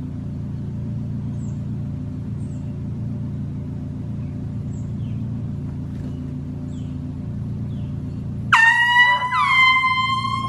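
A steady low hum, then, about three-quarters of the way in, a handheld air horn blasts loudly three times in quick succession, each blast dipping in pitch as it starts.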